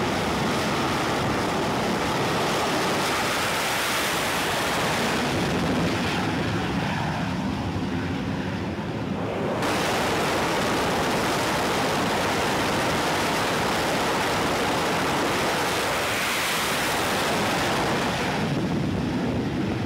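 Jet engines running at high power on an aircraft carrier's flight deck during catapult launches of F/A-18 Super Hornets: a steady rushing noise with wind buffeting the microphone. The sound dulls somewhat for a few seconds, then comes back full just before ten seconds in.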